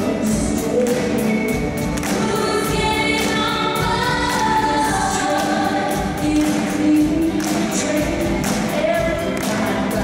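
Youth jazz orchestra, a big band with saxophones and rhythm section, playing a gospel-style number with a woman singing lead and backing singers, over a steady drum beat.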